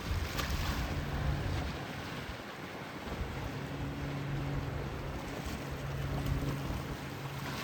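Distant rumble of a departing Boeing 777-300ER's twin GE90 jet engines as it climbs away, with a steady low hum, mixed with wind buffeting the microphone.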